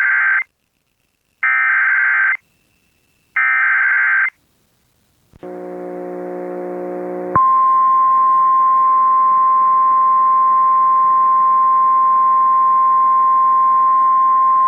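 Emergency Alert System SAME header: three short, loud data bursts of warbling digital tones about two seconds apart, the first already under way. About five seconds in comes a buzzing hum with hiss, and about seven seconds in the alert's single steady attention tone starts, announcing the flash flood warning message to follow.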